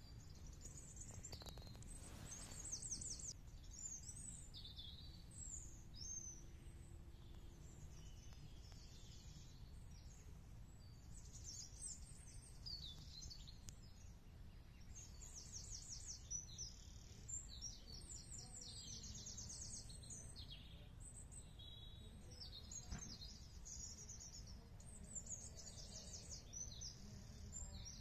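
Garden birds singing on and off throughout, short high-pitched phrases and rapid trills one after another, over a quiet low background rumble.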